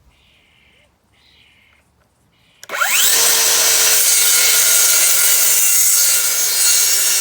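DeWalt DCS575 54V FlexVolt cordless circular saw starting about two and a half seconds in, its whine rising quickly as it spins up, then cutting through wood with a new 24-tooth blade, loud and steady to the end.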